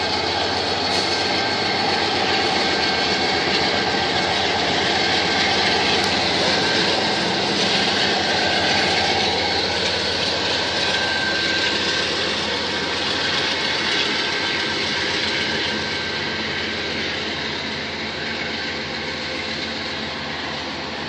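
Norfolk Southern freight train passing: diesel locomotives running as they go by, then covered hopper cars rolling over the rails. The sound is steady and slowly fades over the last few seconds.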